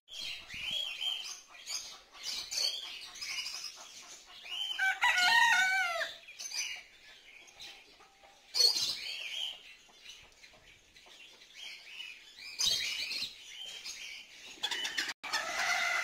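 Many small caged birds chirping and twittering. A domestic fowl gives a loud, wavering drawn-out call about five seconds in, and there are shorter loud calls later on.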